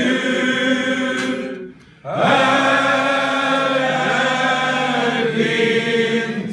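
A group of men singing a Swedish snapsvisa (drinking song) together, drawing out long notes, with a short break about two seconds in before a long held final note.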